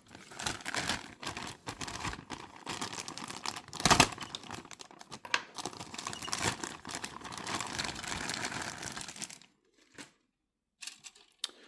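Plastic parts bags from a model car kit crinkling and rustling as they are handled, with a sharp clack about four seconds in. The handling stops about nine and a half seconds in, leaving a single click.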